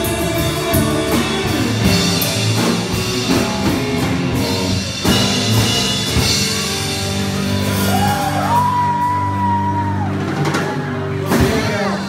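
Live country-rock band playing the closing bars of a song: drum kit, electric guitars and bass, with a long held note bent up into pitch about eight seconds in.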